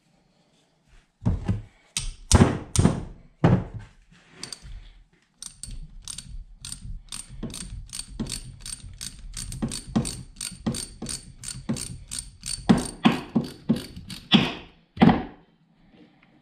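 Hand ratchet fitted with an 8 mm Allen bit, turning the bolts of a Hydro Gear hydraulic pump: a few heavy clicks and knocks, then a long even run of ratchet clicks, about three to four a second, with several louder strokes near the end.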